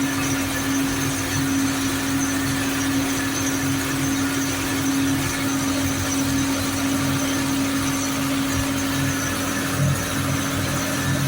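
Hymac 370C excavator's replacement D-144 air-cooled four-cylinder diesel running steadily, a constant even drone with a strong steady hum, just after the engine swap.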